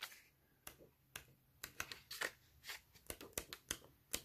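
Faint, irregular flicks and taps of cardstock sheets as a 6x6 patterned paper pad is flipped through by hand, about a dozen short page snaps.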